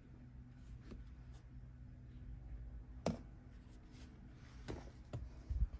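Plastic door sill trim panel being handled, with one sharp click about three seconds in and a few duller knocks near the end.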